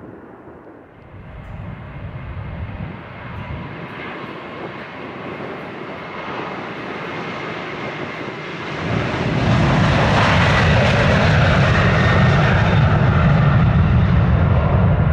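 Jet airliner's engines growing louder as the plane approaches, with a faint steady whine. About nine seconds in the sound jumps much louder, with a deep rumble that holds to the end.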